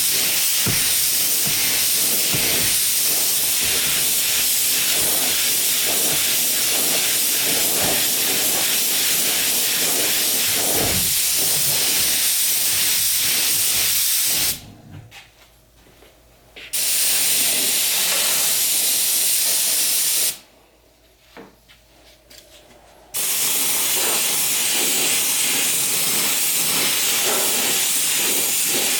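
SATA detail spray gun spraying Cerakote ceramic coating: a steady hiss of air that stops abruptly twice for two or three seconds, about halfway through and again a few seconds later.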